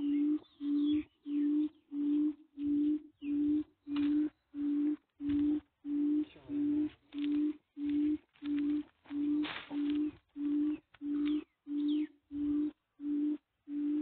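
A low, steady-pitched beep repeating evenly, about one and a half beeps a second, with the sound cutting out completely between beeps.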